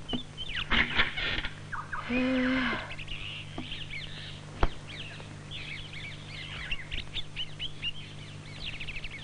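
Small birds chirping and twittering in quick, many-voiced bursts, densest through the second half. A brief held lower note sounds about two seconds in, and a single sharp click comes near the middle.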